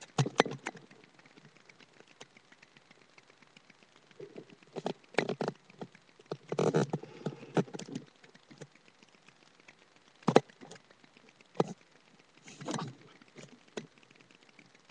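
Irregular knocks, bumps and rustles from handling close to the webcam microphone, loudest at the start and in a sharp knock about ten seconds in.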